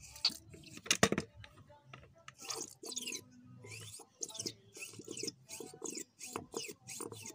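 Motorcycle rear shock absorber being pumped by hand to force its old, thin oil out into a plastic bucket: a sharp knock about a second in, then a rapid run of short strokes, about three a second, as fluid and air are expelled from the leaking shock.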